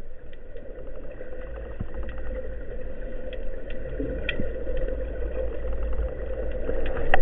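Underwater ambience picked up by a camera in a waterproof housing: deep steady low noise with a steady hum, scattered faint clicks, and one sharp click near the end.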